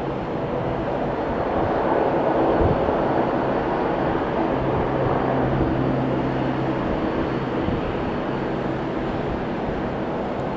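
Jet airliner engines passing: a loud rushing noise with a steady low hum that swells to a peak about two to three seconds in and then slowly eases off.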